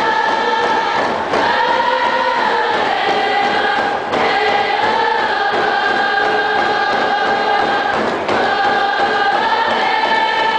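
A large group of voices singing a Coast Salish song together in unison, holding long notes, with brief dips between phrases about every three to four seconds.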